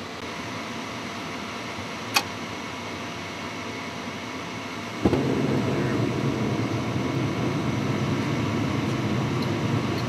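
Gas furnace, newly converted to propane, firing on a call for heat: a steady hum from the draft inducer motor with one sharp click about two seconds in, then about five seconds in the burners light with a sudden onset and go on with a steady, louder rushing noise of burning gas.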